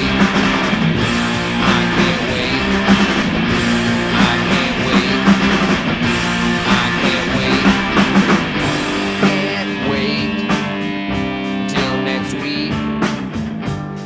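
Rock band playing an instrumental passage with no vocals: a Telecaster-style electric guitar over a drum kit.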